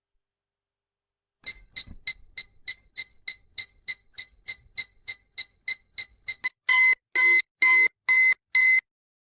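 Electronic beeper: a quick run of short, high beeps at about three or four a second, then five longer beeps of the same pitch, ending abruptly.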